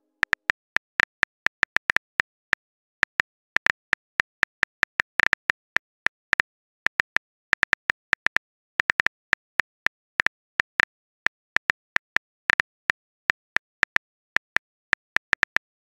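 A phone's on-screen keyboard clicking rapidly and irregularly, one short click per key press, as a text message is typed.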